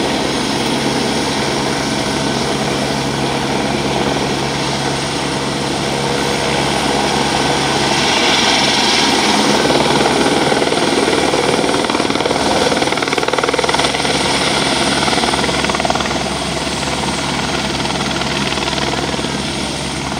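Single-engine light helicopter running with its rotor turning, a steady loud turbine-and-rotor noise that swells slightly about eight seconds in as it lifts into a hover.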